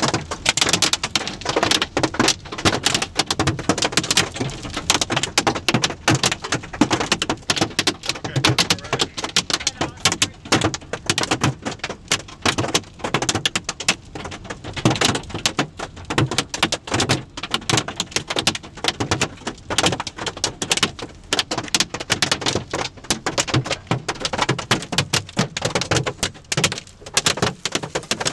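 Hailstones pelting a car's roof and windshield: a dense, irregular clatter of countless hard impacts with no letup.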